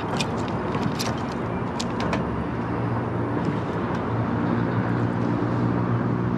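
A steady low engine hum that grows a little louder after about four seconds, with a few sharp clicks in the first two seconds.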